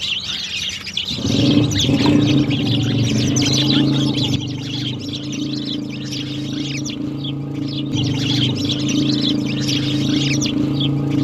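A flock of sparrows chirping busily, many quick overlapping chirps. About a second in, a steady low hum starts and runs on underneath.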